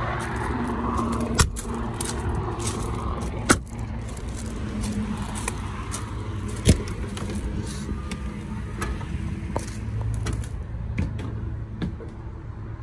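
Mercedes-Benz chassis six-cylinder diesel engine idling quietly, a steady low hum, with three sharp clicks or knocks about a second and a half, three and a half and nearly seven seconds in, like a door latch and door being worked.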